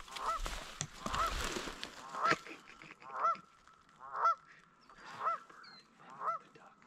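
A goose honking over and over, about once a second, each honk the same short call. A brief rustling noise in the first couple of seconds.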